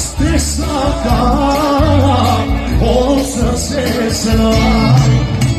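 Live band playing amplified dance music with singing, over a steady pulsing bass beat.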